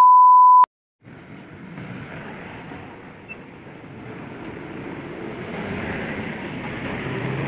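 A loud, steady test-card beep of the kind that goes with TV colour bars, lasting under a second and cutting off sharply. After a moment of silence comes a steady rushing background noise, like distant traffic, that slowly grows louder.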